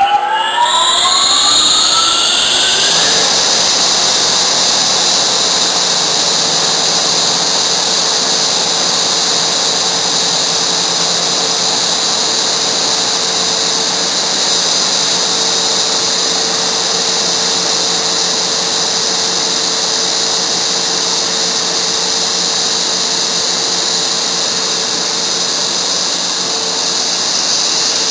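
Electric motor and centrifugal water booster pump, driven through a MagnaDrive magnetic coupling, coming up to speed: a rising whine over the first two or three seconds, then a steady running hum with a strong high hiss.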